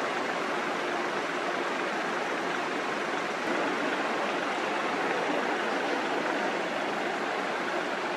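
Fast-flowing river water rushing as a steady, unbroken hiss.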